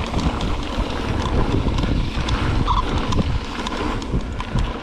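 Wind rumbling on a GoPro action camera's microphone while riding a mountain bike on a dirt and gravel trail, with tyres rolling over loose stones and small rattles and clicks from the bike.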